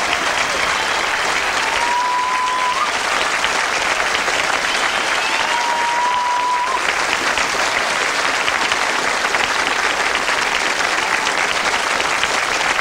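Studio audience applauding steadily after a song. Two brief high tones rise at their ends over the clapping, about two seconds in and again around five to six seconds in.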